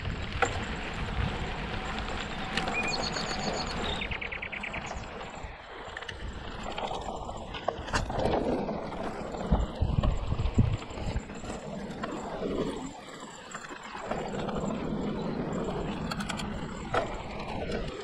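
Hardtail e-mountain bike rolling over a forest dirt trail: steady tyre and riding noise, with knocks over bumps about ten seconds in. A bird sings briefly about three seconds in.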